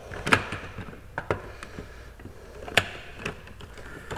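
Hard plastic parts of a Bug-A-Salt salt gun clicking and knocking as its internals, spring and plunger, are fitted back into the housing by hand: a scatter of separate sharp clicks, the sharpest about three seconds in.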